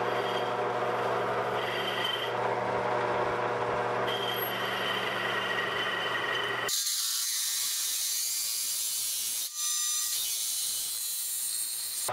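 Milling machine cutting aluminium: a steady spindle and motor hum with several fixed tones and a high cutting whine. About two-thirds of the way through the sound changes abruptly to a high hiss of cutting with the low hum gone.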